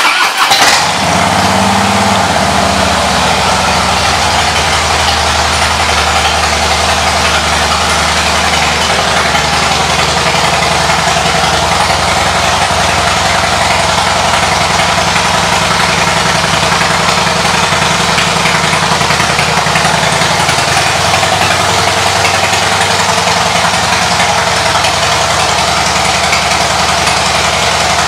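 A 2014 Harley-Davidson Heritage Softail Classic's air-cooled Twin Cam V-twin idles steadily through aftermarket exhaust pipes. The pitch wavers slightly in the first couple of seconds before it settles.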